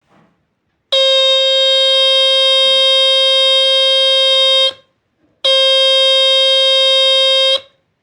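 Home-made electronic doorbell circuit sounding a steady, high buzzing tone twice: first for nearly four seconds starting about a second in, then, after a short break, for about two seconds. Each tone starts and cuts off sharply, as when the bell button is pressed and released.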